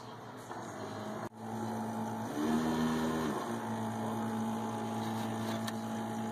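Keurig single-cup coffee brewer running as it brews, a steady pump hum that changes pitch briefly about two and a half seconds in.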